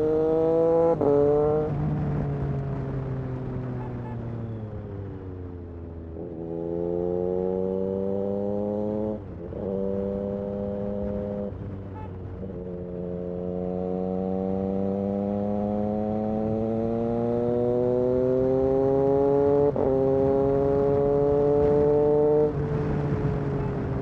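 Triumph Street Triple RS 765's inline-three engine through an SC Project S1 exhaust, heard from the rider's seat. The pitch falls at first as the bike slows, then climbs in gear after gear, with quick upshifts about three, three and a half and six seconds apart. The throttle closes near the end.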